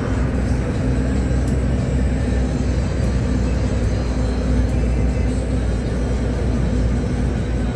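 City bus engine running steadily under way, with tyre and road noise, heard from inside at the front of the bus.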